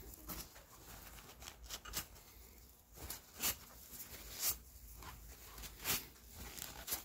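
Paper towel crinkling and rubbing as a gloved hand wipes rust-remover soak off a forged pick head, faint, with a few short, louder swishes about three and a half, four and a half and six seconds in.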